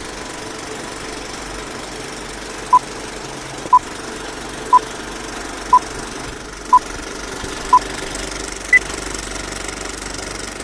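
Electronic countdown beeps: six short beeps of the same pitch at one per second, then one higher beep, over a steady background hiss and hum.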